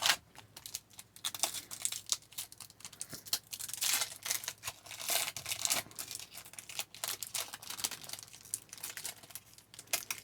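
A trading-card pack wrapper being torn open and crinkled by hand: dense, irregular crackling and tearing, busiest in the middle.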